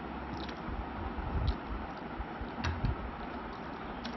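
Eating sounds from someone eating chicken curry and rice by hand: chewing and fingers working rice on a plate, with a few short clicks scattered over a steady background hiss.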